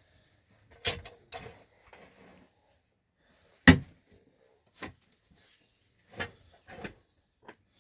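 A series of irregular knocks and clunks, about seven in all, the sharpest and loudest a little past the middle.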